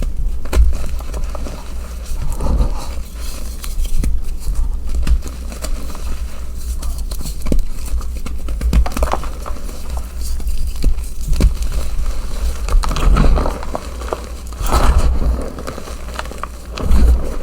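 Blocks and chunks of gym chalk being crushed and crumbled, a crunchy crackling made of many small irregular cracks, with dull low thuds underneath.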